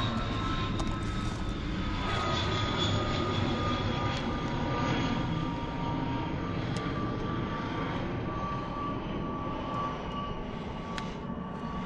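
An aircraft flying over: a steady engine whine with a rushing noise, its pitch sliding slowly lower as it passes and fading near the end.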